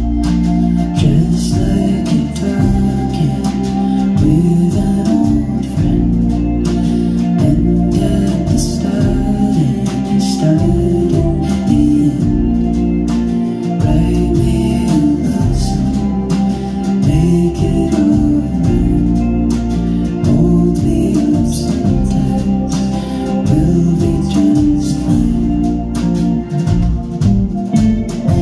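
Live band playing a song: a woman's lead vocal over electric guitars, bass guitar, drums and keyboard.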